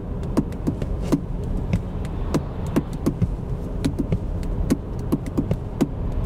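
Steady low tyre and road rumble inside the cabin of a Cupra Born VZ electric car on 215/45 R20 winter tyres while it drives, with sharp ticks coming irregularly a few times a second.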